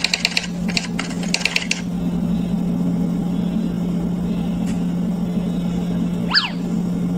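Outro-animation sound effects: a run of quick typewriter-like clicks for the first two seconds over a steady low hum, and a short whistling sweep that rises and falls about six seconds in.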